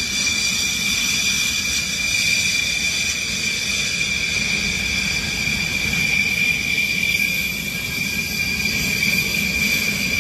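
Dassault Rafale jet engines running at taxi power: a steady, high-pitched whine over a low rumble, with a slight dip in loudness a little past the middle.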